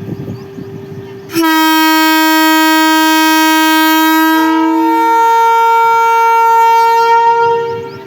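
WAG-12B electric locomotive's horn sounding one long blast of about six seconds, starting about a second and a half in. It opens on a low note and steps up to a higher note about three seconds later, then fades near the end.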